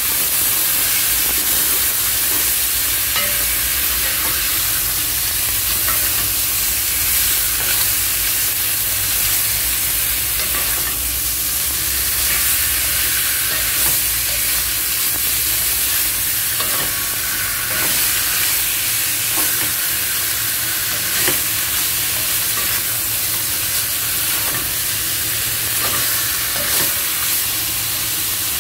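Pieces of fish sizzling in hot oil in a nonstick wok, stirred and turned with a plastic spatula that scrapes and taps against the pan now and then.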